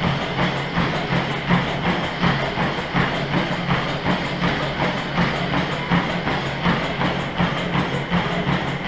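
Running footfalls landing rhythmically on a NordicTrack treadmill's deck, about three a second, over the steady hum of its motor and moving belt.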